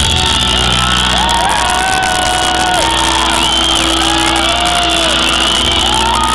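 Live hard-rock band holding a sustained, ringing chord, with the crowd shouting and whooping over it, typical of the end of a song.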